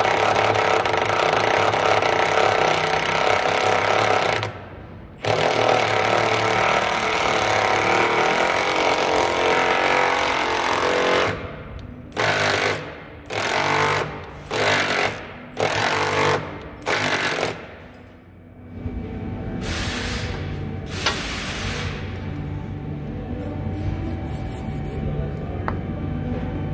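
Cordless impact wrench hammering a notched self-cutting bolt into an unthreaded hole in the body, slowly cutting its own threads. It runs in two long stretches, then in a string of short bursts about a second apart, and stops a little over 20 seconds in.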